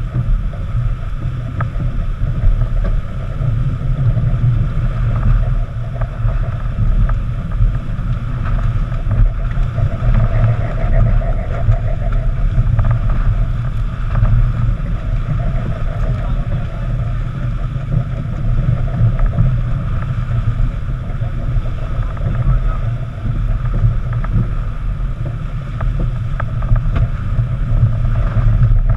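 Steady wind buffeting the microphone over the rush of water along the hull of a heeled racing yacht under sail.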